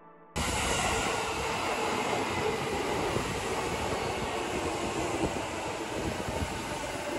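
Negishi Line (Keihin-Tohoku Line) electric commuter train running along the track: a steady rumble and rush of wheels on rails that starts abruptly a moment in.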